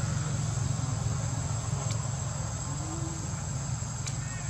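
Insects droning in a steady high-pitched whine, over a low steady rumble, with a faint click about four seconds in.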